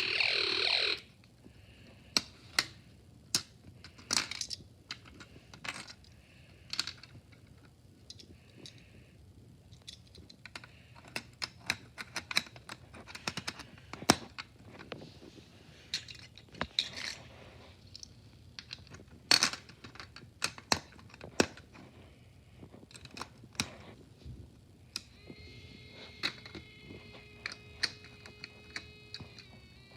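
Scattered sharp clicks and knocks of small plastic parts being handled and snapped together, after an electronic siren-like sound effect from a toy circuit's speaker cuts off about a second in. Near the end a faint steady electronic tone starts.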